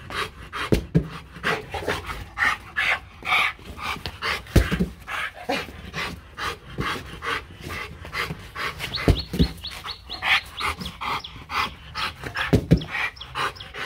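Rottweiler panting fast and evenly with its mouth open, about four breaths a second, with a few low thumps scattered through.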